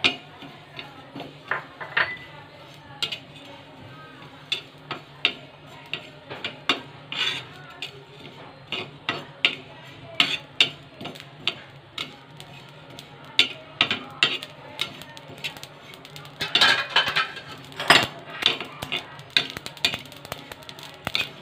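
Metal spatula scraping and tapping on a flat metal tawa while stirring cumin seeds being dry-roasted, in irregular strokes that come thickest about three-quarters of the way through.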